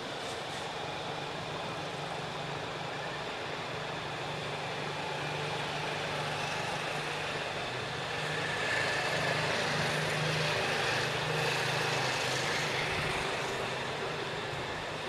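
Road traffic with a steady low engine hum. A vehicle passing swells louder about halfway through and fades again near the end.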